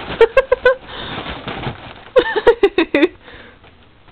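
Two short runs of laughter in quick bursts, with a soft breathy hiss between them as helium is sucked from a foil balloon.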